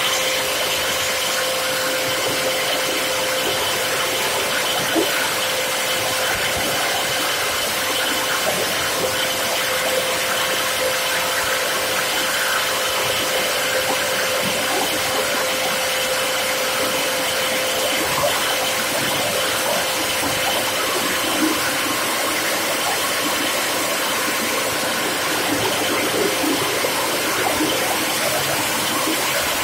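Plastic scrap grinder running and cutting PET bottles: a steady rushing machine noise with a constant whine, and the plastic crackling as it is chopped, with a few louder cracks now and then.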